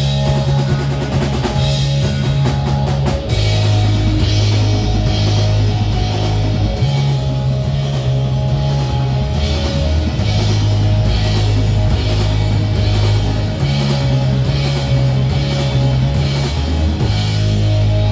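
Live rock band playing an instrumental passage with no singing. A drum fill gives way, about three seconds in, to steady cymbal hits on the beat, over long held bass notes.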